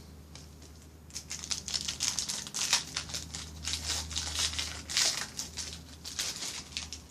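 Crinkly plastic trading-card pack wrapper being torn open and crumpled, in a run of irregular crackling bursts that starts about a second in.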